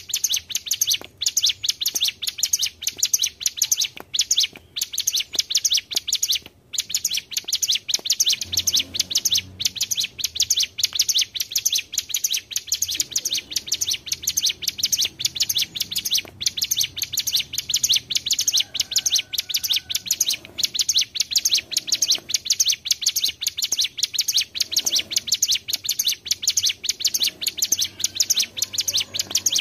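Ciblek gunung, a small Indonesian mountain prinia, singing a fast, unbroken run of sharp, high chirping notes, as played to lure the birds in. The song drops out only briefly about six and a half seconds in.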